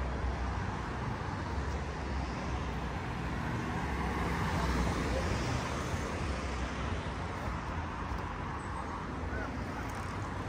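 City street traffic: cars passing on the road alongside, a steady rumble that swells a little around the middle.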